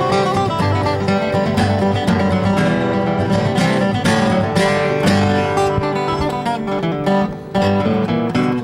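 Two acoustic guitars played together, picking a tune with many quick notes over a steady bass line. The playing breaks off near the end.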